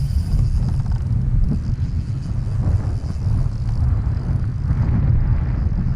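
Wind buffeting an outdoor camera microphone: a loud, uneven low rumble.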